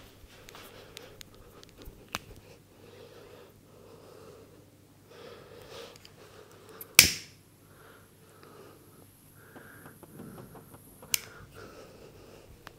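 Head massage sounds: hands rubbing and patting over hair and skin. There is a loud sharp crack about seven seconds in and a smaller one about four seconds later.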